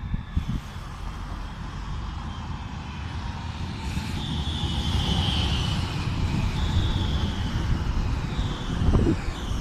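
Alstom Citadis low-floor tram pulling in to a stop close by, with a steady rumble of wheels on rail. A high squeal starts about four seconds in, and a whine falls in pitch near the end as the tram slows. There is a low thump about nine seconds in.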